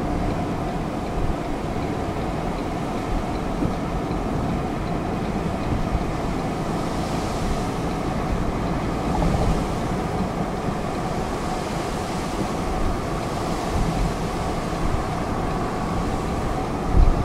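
Steady road and tyre noise with engine hum, heard inside the cabin of a moving car.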